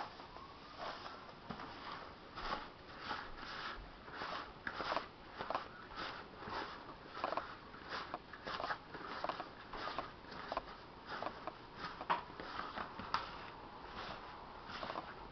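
Hands kneading and squeezing a wet, sticky dough of bread soaked with cola and maple syrup, making short, irregular squishes about two a second.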